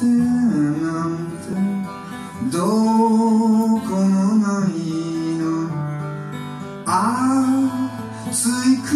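Live acoustic folk song: a man singing with held, gliding notes over his own strummed acoustic guitar, backed by a percussionist on a drum kit.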